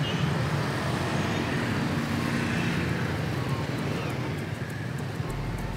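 Busy street traffic of motor scooters and cars passing: a steady low engine hum under an even wash of road noise.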